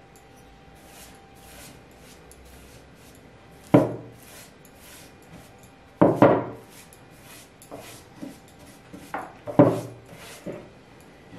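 A flat paintbrush brushing sealer over decoupage paper on a wooden board: short, soft strokes about two a second. Three sharp knocks stand out as the loudest sounds, about four seconds in, about six seconds in, and near the end.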